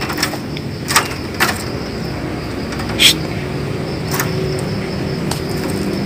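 A caged Javan pied starling (jalak suren), reacting fiercely to a hand at the wire mesh, makes about five short, sharp, harsh sounds spread over the few seconds. A steady low hum runs underneath.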